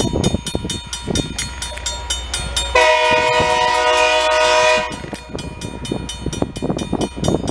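Loram rail grinder working along the track: steady grinding noise with a fast, even pulse over the low hum of its engines. About three seconds in, a horn chord sounds once for about two seconds.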